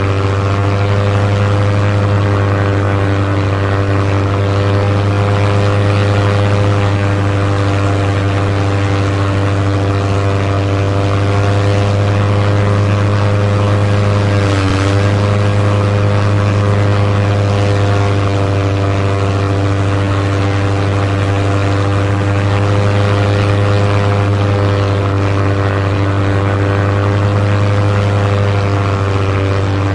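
Propeller aircraft engine droning steadily, with a strong low hum and a brief dip in pitch about halfway through.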